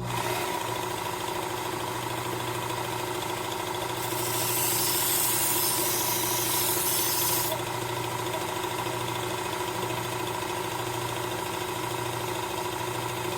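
The motor of a Work Sharp Ken Onion knife and tool sharpener, fitted with the blade grinding attachment, switches on and runs steadily with a whine. About four seconds in, a louder hiss of the abrasive belt grinding steel lasts for a few seconds as the burr is taken off the back of a serrated bread knife.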